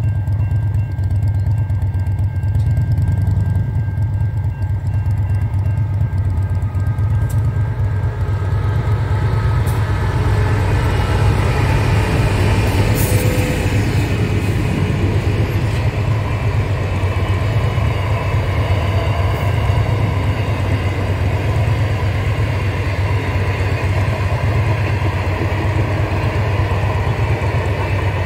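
Container freight train passing at speed: a steady low rumble, with wheel-on-rail noise from the wagons growing louder from about ten seconds in.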